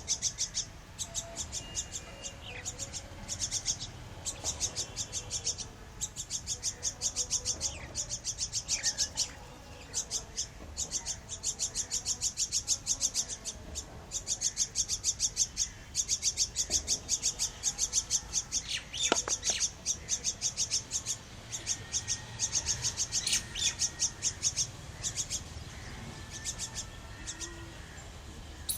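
Small birds chirping in fast, high runs of many chirps a second, broken by brief pauses.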